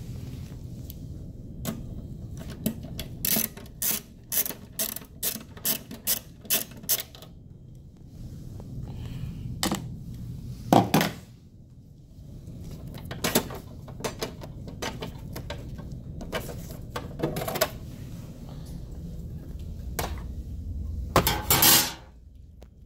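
Clicks and clanks of hand tools and metal parts being handled while working on a vending machine: a run of sharp clicks, about two or three a second, then a few louder knocks and a clatter near the end, over a low steady hum.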